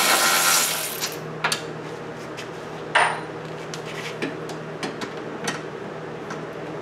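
Milwaukee cordless impact wrench running on a 15 mm suspension bolt and stopping about a second in, followed by scattered light metallic clicks and clinks, the loudest about three seconds in.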